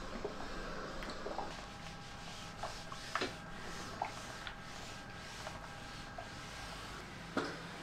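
Clothes iron sliding back and forth over fabric: soft rubbing strokes, with a few light knocks.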